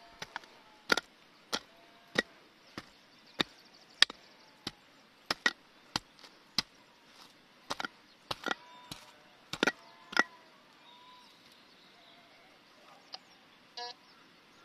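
A short-handled digging pick chopping into soil, about twenty sharp strikes at roughly two a second, which stop about ten seconds in. Near the end a metal detector gives a short electronic beep as its coil is passed over the hole, signalling metal still in the ground.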